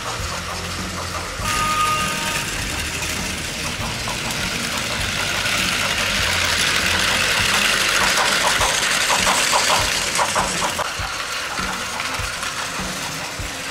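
Several battery-powered Plarail toy trains running on plastic track, their small motors and gears whirring steadily, with a run of quick ticks between about eight and eleven seconds in.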